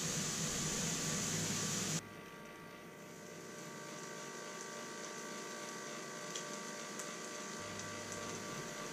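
Power Smokeless Grill's built-in fan running with pork steaks sizzling on the heated grate. About two seconds in the sound drops abruptly to a quieter steady hum with a faint whine and a few small pops.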